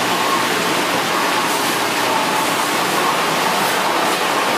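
Steady rushing of running water in the market's live-fish tanks, with faint voices of people in the market beneath it.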